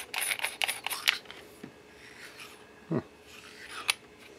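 Hands handling an Audio-Technica ATR6550 shotgun microphone: a quick run of small clicks and rubs on its body in the first second, then quieter rubbing, a dull knock about three seconds in, and another click near the end.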